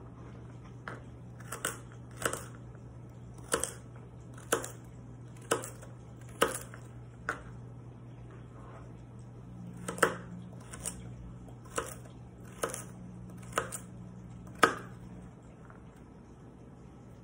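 Kitchen knife chopping carrots on a cutting board: a crisp knock each time the blade goes through the carrot and hits the board, about one a second. There are two runs of cuts with a pause of a couple of seconds between them.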